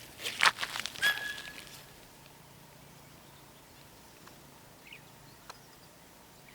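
Footsteps crunching through dry vegetation, which stop about two seconds in. A short, steady whistle-like call sounds about a second in. After that only faint outdoor background remains, with a small chirp near the end.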